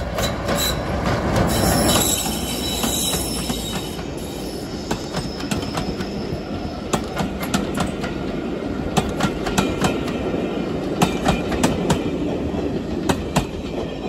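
A Class 33 diesel locomotive passes close by with its engine running, loudest about two seconds in, with some high wheel squeal. Its coaches then roll past, the wheels clicking sharply over the rail joints, until the train has gone near the end.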